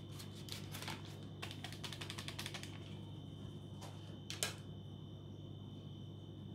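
Metal wire whisk ticking and tapping against a glass mixing bowl: a quick run of light clicks in the first few seconds, then two sharper knocks about four seconds in. A faint steady hum sits underneath.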